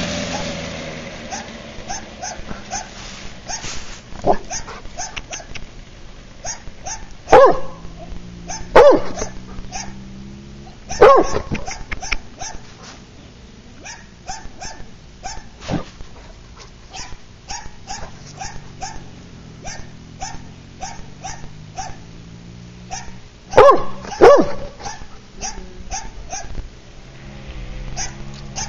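A dog barking over and over in short, quick barks, two or three a second, with a few much louder barks scattered through.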